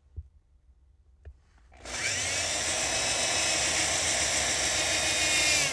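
Handheld power drill with a hole saw cutting through the truck's floorboard: a couple of light clicks, then about two seconds in the drill starts and runs in one steady, loud grind as the saw bites through the floor.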